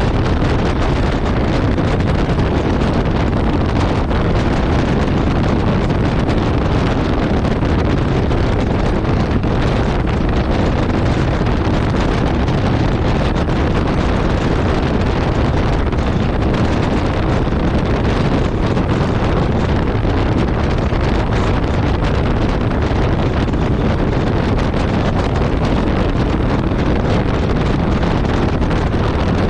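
Steady wind rush on the microphone of a Yamaha Ténéré 700 motorcycle riding along a road, mixed with the bike's engine and road noise, with no changes or sudden sounds.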